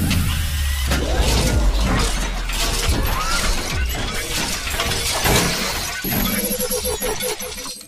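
Sound effects of an animated logo intro: a deep bass boom over the first couple of seconds, under a dense run of crashing, clattering strokes and swishing sweeps.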